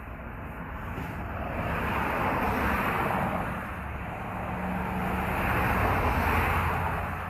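Two road vehicles driving past one after another, the noise swelling and fading twice.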